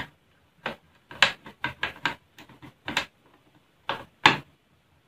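A screwdriver turning a small screw into a laptop motherboard: about ten light, irregular clicks and ticks of the tip and screw.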